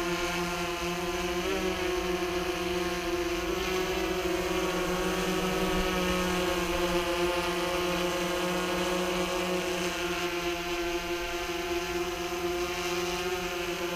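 DJI Phantom 3 quadcopter hovering, its four propellers giving a steady, high buzzing hum. The pitch wavers briefly a couple of times in the first few seconds as the motors change speed to turn it on the spot.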